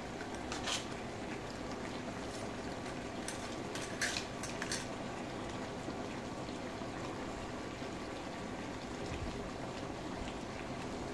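Crab in coconut-milk sauce simmering in a metal pot: a steady bubbling hiss, with a few sharp clicks about a second in and a short cluster of them around four seconds.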